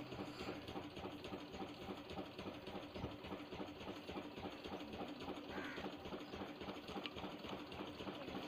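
A small engine or motor running steadily, with a rapid, even pulsing.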